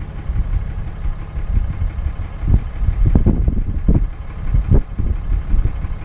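Pickup truck engine running at idle, a steady low rumble broken by irregular low thumps in the second half.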